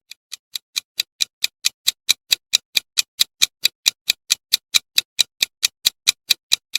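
Countdown-timer clock ticking sound effect: sharp, evenly spaced ticks, about five a second, softer at first and reaching full level within the first second.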